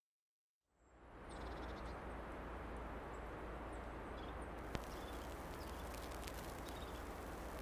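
Steady background ambience fades in from silence about a second in: an even hiss over a low hum. Faint short high chirps sound over the first few seconds, and scattered small clicks come in the second half, one louder about five seconds in.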